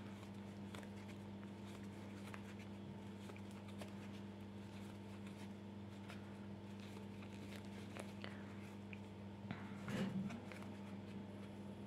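Faint scratching and light ticks of a metal crochet hook drawing cotton yarn through single crochet stitches, over a steady low hum, with a brief soft sound about ten seconds in.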